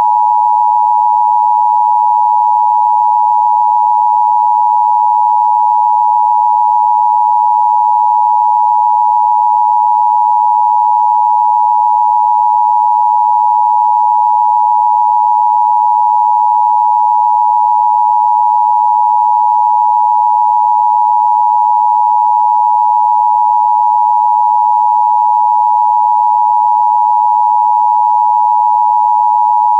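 Emergency broadcast attention tone: a loud, steady high-pitched electronic tone held without a break.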